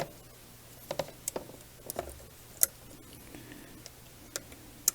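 Scattered light clicks and taps, about ten of them at irregular intervals, from a small screw and hex driver being worked into a carbon fibre quadcopter frame.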